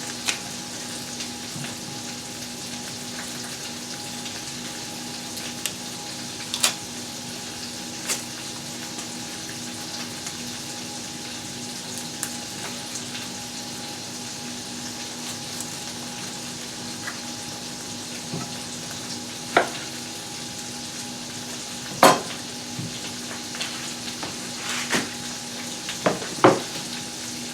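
Chicken pieces sizzling steadily as they brown in butter in a frying pan, under a steady low hum. A few sharp clicks and knocks of kitchen utensils come now and then, the loudest about two-thirds of the way through.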